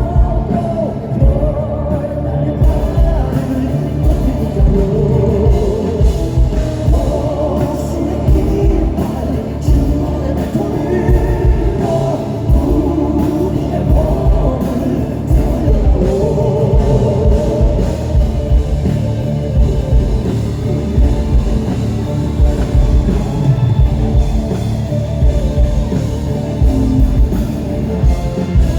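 Male vocal quartet singing a rock song live, with belted vocals over a band's drums, bass and electric guitar.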